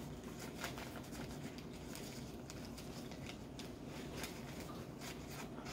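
Faint light clicks and taps of small items being handled, over a steady low room hum.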